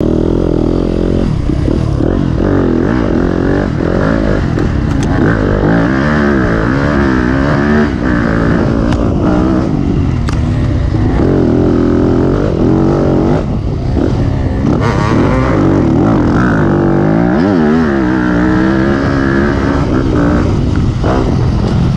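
Dirt bike engine heard from the bike being ridden, revving up and falling back again and again as the rider accelerates and rolls off the throttle along a trail.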